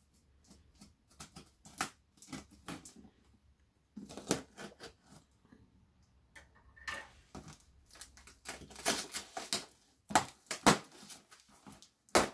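Cardboard shipping box being opened: packing tape slit and torn and the cardboard flaps pulled open, heard as irregular scratches, rips and snaps, with clusters about four seconds in and again near the end.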